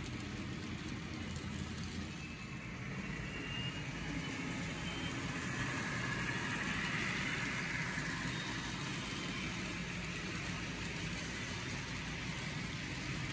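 HO scale model freight train passing close by: a steady engine-like rumble with the rolling hiss of wheels on the rails. It grows louder in the middle as the two model diesel locomotives go past.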